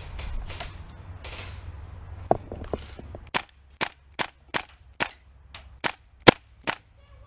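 Tokyo Marui MP7 gas blowback airsoft gun firing single shots, a string of about nine sharp clacks at roughly two to three a second in the second half, after a few seconds of rustling movement.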